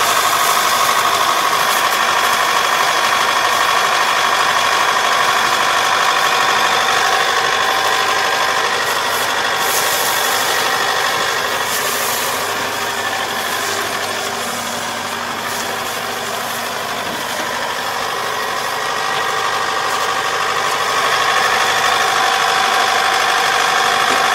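Kubota ER470 four-row combine harvester's diesel engine running steadily, dipping slightly for a few seconds midway.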